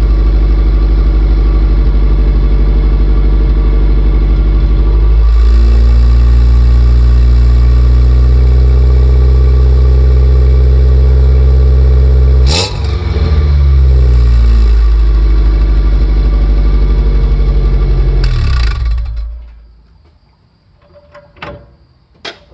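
Exhaust of a 1990 Ford Ranger's 2.3-litre four-cylinder engine through a Thrush dual-chamber muffler and 2.5-inch pipe, running at idle, loud and close at the tailpipe. Its note changes about five seconds in, with a sharp click and a brief dip around twelve seconds. The engine sound stops about nineteen seconds in, followed by a few faint clicks.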